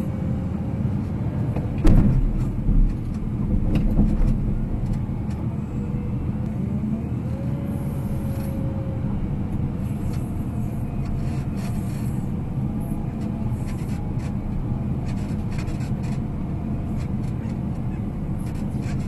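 Wheel loader's diesel engine running steadily, heard from inside the cab, with a few loud knocks about two and four seconds in.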